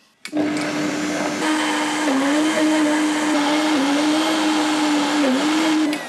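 Countertop blender motor running loud at full speed through a thick beetroot hummus paste of chickpeas, tahini and beetroot. It starts just after the beginning, its pitch dips briefly three times as the paste drags on the blade, and it cuts off near the end.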